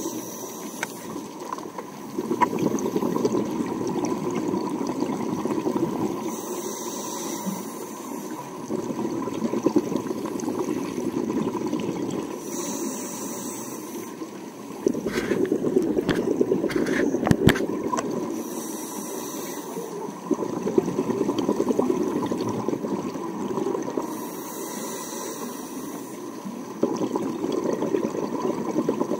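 A scuba diver breathing through a regulator underwater, five breaths about six seconds apart. Each breath is a short hiss of the demand valve on the inhale, then the rushing, bubbling noise of exhaled air. A few sharp clicks come about halfway through.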